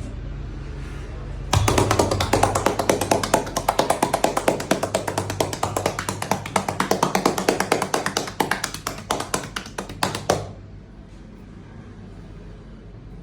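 Percussive massage strokes: hands rapidly tapping on the body at about nine strikes a second. The strikes start abruptly about a second and a half in and stop abruptly near the end.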